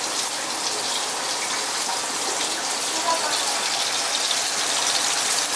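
Kitchen tap running in a steady stream.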